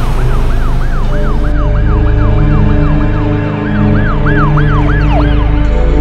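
Cartoon emergency siren sound effect: a fast rising-and-falling yelp, about three sweeps a second, that stops about five seconds in. Background music with steady low tones plays underneath.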